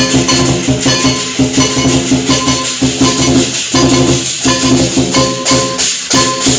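Lion dance percussion, with drum, clashing cymbals and ringing gong, beating a fast, continuous rhythm.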